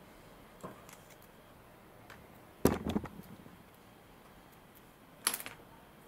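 Small hard objects being handled and set down on a work surface: a light click, a louder brief clatter about two and a half seconds in, and another sharp knock near the end.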